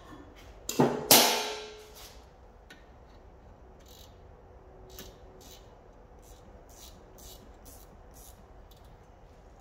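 Two metallic clanks of a hand tool on the rear brake caliper about a second in, the second louder and ringing for nearly a second, followed by a run of faint light ticks.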